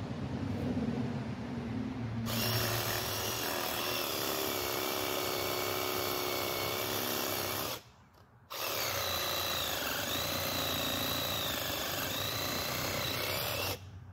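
A power tool's motor running in two stretches with an abrupt break near the middle. Its pitch sags and recovers a few times as it works under load.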